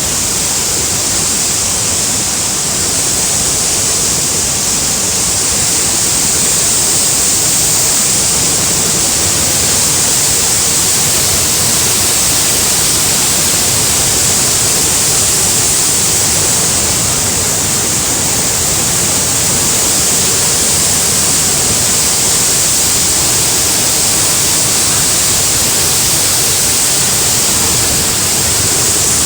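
Loud, steady rushing of torrential floodwater.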